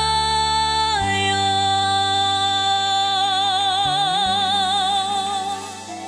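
A woman singing a Korean trot song, holding one long note with a wide vibrato over the backing band. The note steps down slightly about a second in and fades near the end.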